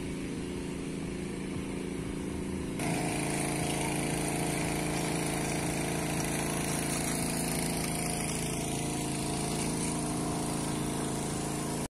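An engine running steadily at a constant speed, a continuous drone that gets louder and fuller about three seconds in.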